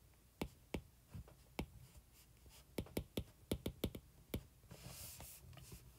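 Stylus tip clicking on a tablet's glass screen during handwriting: irregular sharp clicks, a few at first, then a quick run of them about three to four seconds in, followed by a soft brief hiss.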